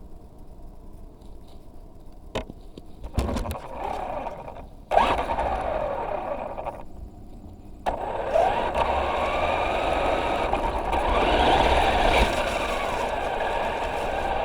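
Traxxas Rustler 4x4 RC truck's electric motor and drivetrain whining, the pitch rising and falling with the throttle. It starts in short bursts after a click and a quiet first couple of seconds, pauses briefly, then runs almost without a break from about halfway.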